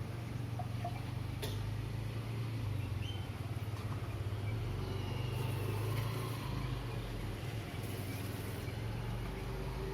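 Steady low rumble of distant city road traffic, with a few faint bird chirps over it and a single click about a second and a half in.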